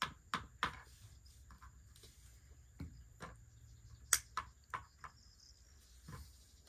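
A dozen or so light, sharp taps and clicks at irregular intervals, typical of game pieces and dice being handled on a board.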